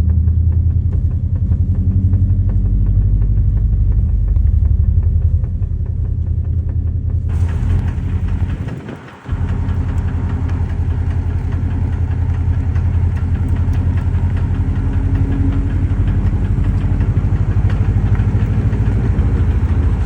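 Subaru driving at low speed with a repeated knocking from the front end, toward the driver's side front wheel, over engine and road rumble; the owner suspects worn brake pads, as the knock goes away under braking. About seven seconds in, louder road and tyre hiss comes in, with a brief drop-out just after.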